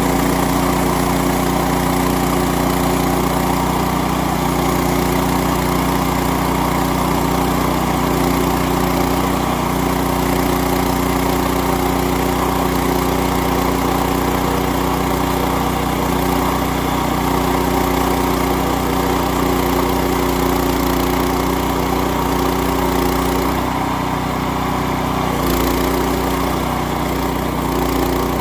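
Gas engine of a Woodland Mills portable bandsaw mill running steadily while the band blade cuts through hard white oak. The engine note shifts briefly near the end.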